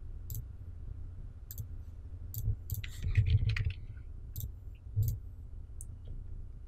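Computer mouse clicks, single and spaced apart, with a quick run of keyboard keystrokes about three seconds in, over a low steady hum.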